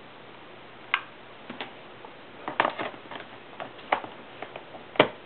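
Irregular clicks and taps of fingers handling a new hard drive in a MacBook's hard-drive bay as it is pushed into place, the loudest a sharp click near the end.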